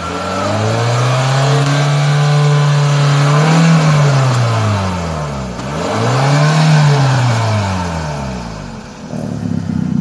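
Car engine revved twice through an exhaust fitted with an electric exhaust cutout. The first rev is held for a few seconds and the second is shorter, each rising and then falling in pitch. The engine then drops back to a steady idle near the end.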